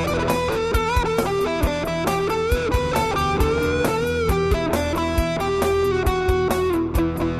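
Music: an electric guitar melody with bent notes over a steady drum beat.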